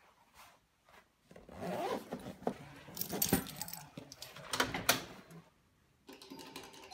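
A bunch of keys jangling and clinking as it is handled, in irregular clusters of metallic clicks that stop about a second before the end.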